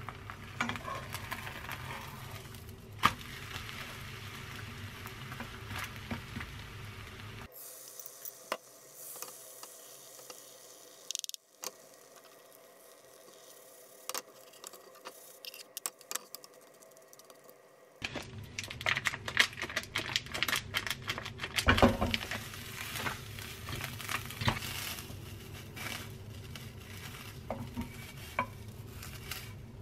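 Beaten egg frying as a thin sheet in a nonstick pan, with a light sizzle and a wooden spatula scraping and tapping the pan. In the second half, a run of sharp taps and knocks as the spatula pushes a rolling sausage around the pan.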